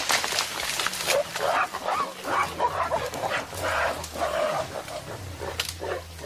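Mountain gorillas vocalising to one another: a run of short, hoarse calls, about two a second.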